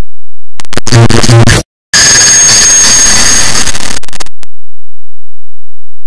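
A clock-ticking sound effect stacked so many times over that it has become harsh, clipped digital noise: a buzzy burst about half a second in, a brief dropout, then a couple of seconds of dense hissing noise with a high whistle in it, cutting off a little after four seconds in.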